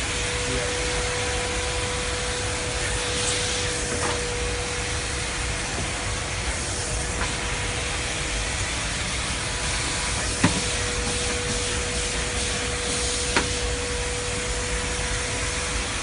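Klenco Monsoon ST12 steam vacuum cleaner running steadily: a steady whine over an even hiss of suction as the floor tool is worked across the floor. A couple of sharp clicks come about ten and thirteen seconds in.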